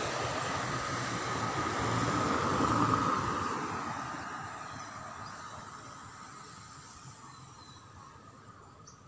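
A minivan passes close by, its engine and tyre noise building to a peak about three seconds in, then fading steadily as it drives away.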